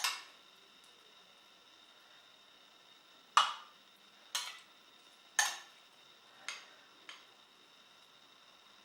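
Utensils clinking against dishes: about six sharp, briefly ringing clinks spaced a second or so apart, the loudest two in the middle.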